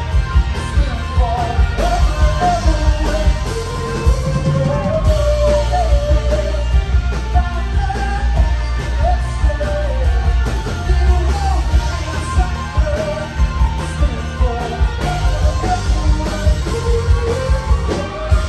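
A rock band playing live: a male voice singing a melody over electric guitars, electric bass and a drum kit.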